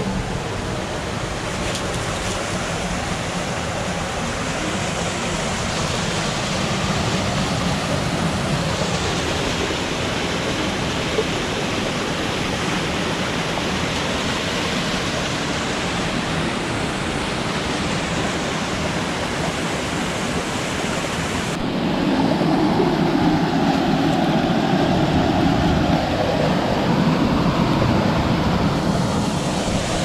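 Steady rush of a mountain creek's flowing water. About two-thirds of the way through it turns louder and fuller.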